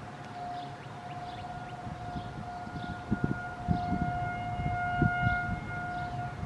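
Outdoor warning siren sounding a steady, unwavering tone. For a second or so in the middle, higher tones join it. Irregular low thumps sound under it.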